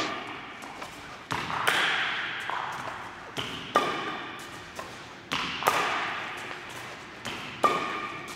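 Badminton racket strings striking shuttlecocks in a steady practice rhythm: sharp hits in pairs about half a second apart, a pair every two seconds or so, each with a short ringing ping from the strings and an echo from the hall.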